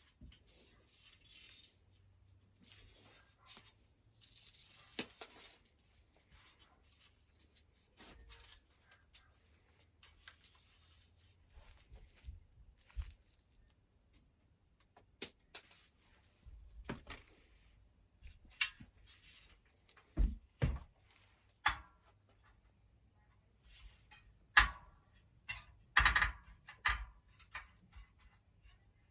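Workbench handling noises: scattered metal clicks, taps and knocks as a bicycle wheel and spoke key are handled. A brief rustling scrape comes about four seconds in, and the sharpest clicks come near the end.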